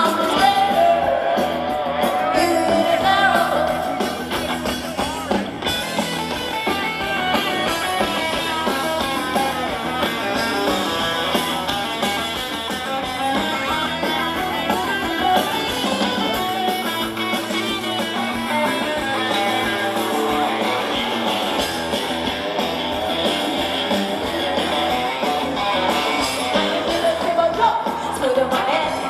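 A live rock band plays with electric guitar and a singer, heard through the festival PA from within the crowd.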